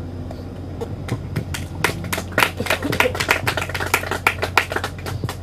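Scattered applause from a small audience: many separate hand claps at an uneven rate, thinning out near the end.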